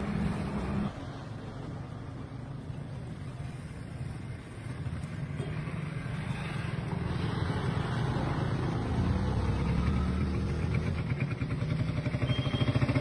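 Motor vehicle engines running, a low rumble that drops off about a second in and then grows louder again through the second half, like a vehicle drawing near.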